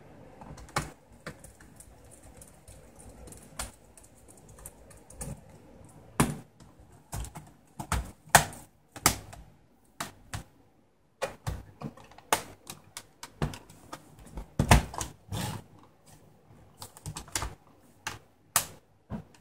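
Irregular plastic clicks and clacks from hands pressing down along a Toshiba Satellite A665 laptop's keyboard and handling its plastic case.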